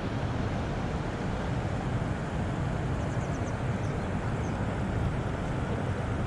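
Steady rushing noise of river water spilling over a low weir, with wind on the microphone.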